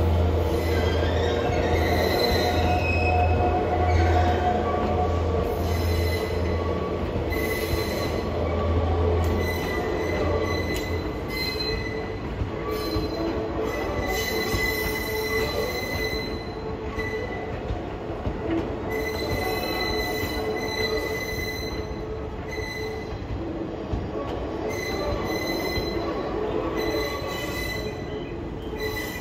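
JNR 185 series train cars, hauled by a shunting switcher, rolling slowly along yard track with the wheels squealing in high, wavering tones that come and go. A low hum fades out about ten seconds in.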